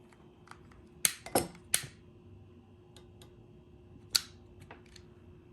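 Several sharp clicks and knocks of small hard parts being handled: three close together about a second in, one more near four seconds, with faint ticks between.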